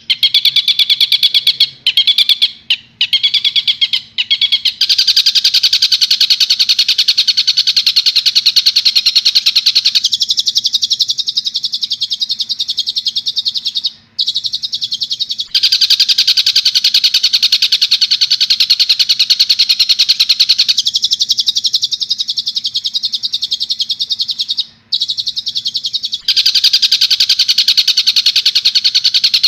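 Recorded calls of a tengkek buto (a kingfisher), used as masteran training audio: a loud, rapid, high-pitched run of repeated notes. It twice gives way to a different, lower and scratchier passage of song, once about ten seconds in and again about twenty seconds in.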